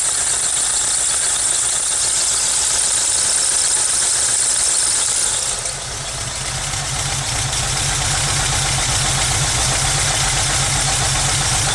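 1991 VW Vanagon's water-cooled 2.1 L flat-four idling shortly after a cold start, with the rough, erratic idle its owner is chasing. About six seconds in, a high hiss drops away and the deeper engine rumble becomes stronger.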